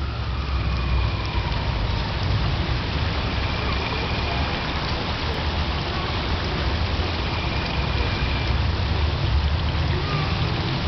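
Steady rushing splash of water pouring from a pool fountain spout, with a low rumble underneath.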